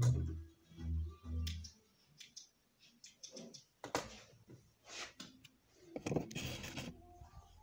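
Industrial sewing machine running in a few short bursts, stopping about a second and a half in. Then scattered clicks and fabric rustling as the cover is handled, with a longer, louder rustle near the end.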